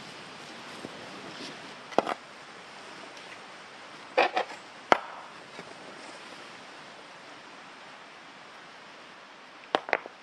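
Stone and spade work in soil: a few sharp knocks and scrapes, one about two seconds in, a short cluster around the middle, and a pair near the end.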